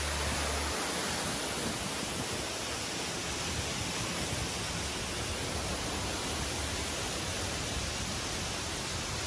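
Water pouring down a wall fountain into a pool, a steady rushing sound. A low hum underneath stops in the first second.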